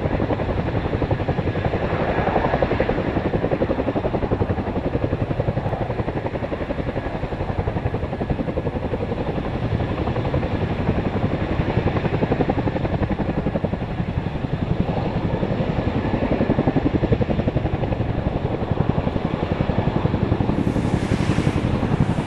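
Boeing CH-47 Chinook tandem-rotor helicopter hovering low, its two rotors beating in a fast, steady rhythm.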